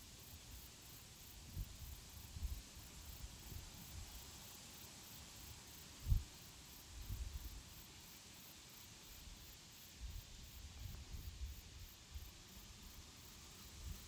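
Faint outdoor garden ambience: a steady high hiss with irregular low wind rumbles on the microphone, the strongest bump about six seconds in.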